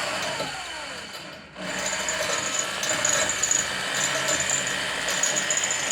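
Small high-speed power tool working on a steel exhaust pipe: its whine slides down and nearly stops about a second and a half in, then it spins back up and runs steadily.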